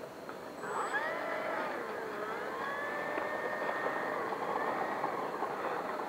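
The E-Flite Turbo Timber 1.5's electric motor and propeller whine as it throttles up to taxi down the runway. The whine starts under a second in, and its pitch dips and then rises again as the throttle changes.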